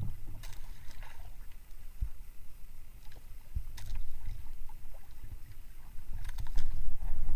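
Low rumble of strong wind and choppy water around a small fishing boat, growing louder about six seconds in, with a few sharp knocks.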